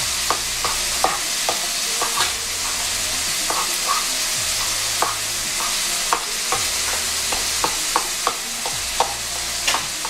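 Cooked egg sizzling in hot oil in a pan while a spoon breaks it up, with a steady sizzle and irregular sharp taps and scrapes of the spoon against the pan, about one or two a second.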